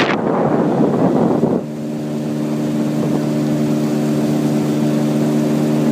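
Boat motor running at a steady speed, an even hum that holds one pitch. For the first second and a half a rush of wind and water noise covers it.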